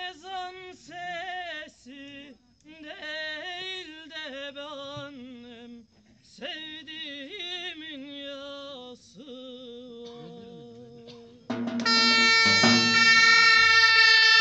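A man sings unaccompanied in long, wavering, ornamented phrases with short pauses between them. About eleven and a half seconds in, a loud shrill zurna and a davul bass drum strike up together, far louder than the voice.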